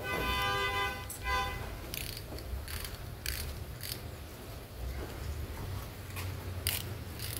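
Ratchet wrench with a long extension working the bolts of a Pajero gearbox housing, giving scattered metallic clicks. A short squeak sounds in the first second, with another brief one just after.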